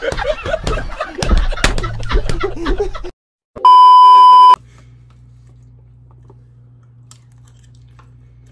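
Talking and laughing voices cut off abruptly, followed about three and a half seconds in by roughly one second of a loud, steady single-pitch beep: the test tone that goes with TV colour bars. After it stops, only a low steady hum remains.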